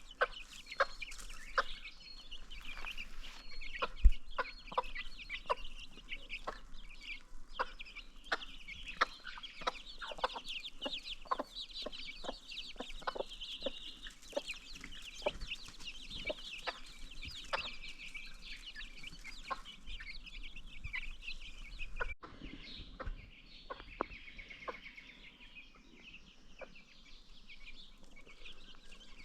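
A flock of free-range chickens clucking, with a dense, high, continuous chirping of baby chicks and many short sharp ticks throughout. The sound changes abruptly about 22 seconds in, then carries on with the same chirping, somewhat fainter.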